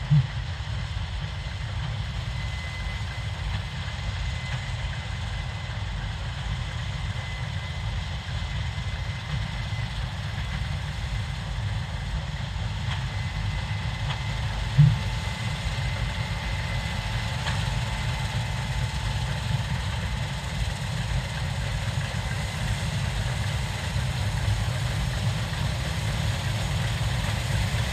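Case IH 7230 Axial-Flow combine running steadily with a deep, even rumble, with two short low thumps, one at the very start and one about halfway through.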